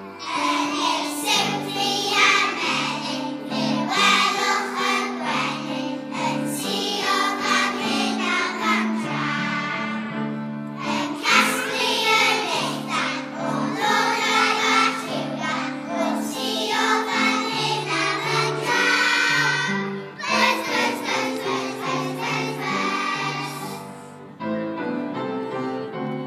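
A group of young children singing together as a choir, with piano accompaniment. The singing breaks off near the end while the piano plays on.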